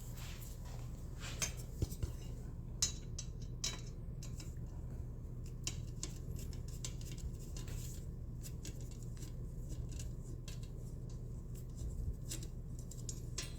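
Scattered light metallic clicks and taps as a screwdriver works on a motorcycle headlight bezel and its parts are handled, over a steady low hum.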